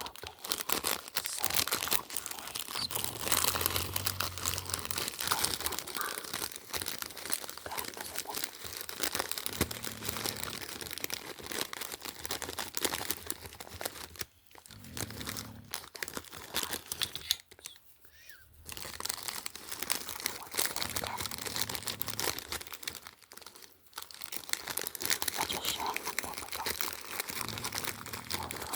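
Packaging crinkling and tearing as items are unwrapped, a dense run of crackles broken by a few short pauses.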